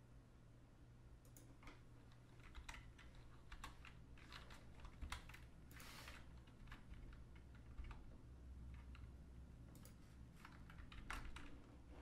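Faint, irregular clicking of computer keyboard keys, a few keystrokes at a time, over a low steady hum.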